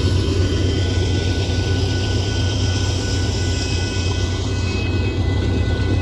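Loaded covered hopper cars of a Union Pacific freight train rolling past over the crossing: a steady low rumble of wheels on rail, with a few faint steady high tones over it.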